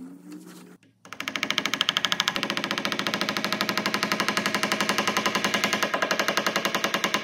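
Green-headed mallet tapping a square walnut plug down into a square hole in a pine frame: a fast, even run of taps, about a dozen a second, starting about a second in.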